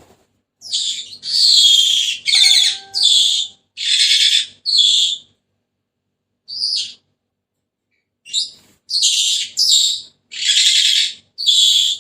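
Senegal parrot calling: a run of about six short, harsh, rasping calls, a single call mid-way, then another run of about five near the end.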